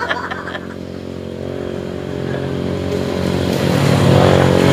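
A small engine running steadily, getting louder over the second half.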